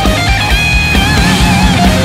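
Rock music soundtrack: electric guitar playing a bending lead line over a fast, steady pounding drum beat.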